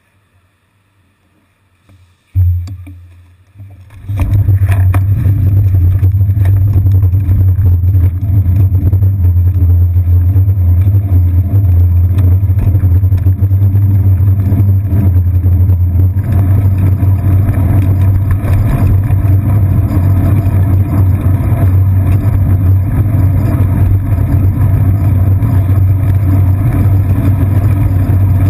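Bicycle-mounted action camera in its housing picking up road vibration and wind. It is quiet at first, a thump comes about two seconds in, then from about four seconds on there is a loud, steady low rumble as the bike rides along the street.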